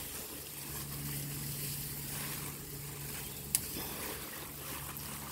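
Faint, steady low engine hum, with a single sharp click about three and a half seconds in.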